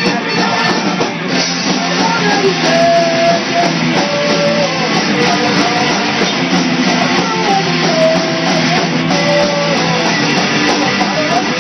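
Live rock band playing an instrumental passage: a lead line of held, sliding notes over guitars, bass and a drum kit.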